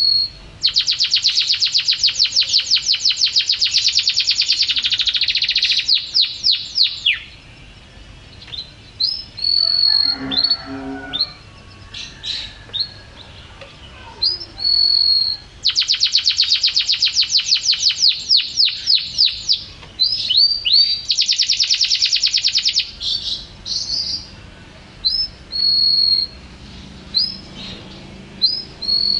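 Domestic canary singing: two long, very rapid trills lasting several seconds each, with short rising whistled notes between them.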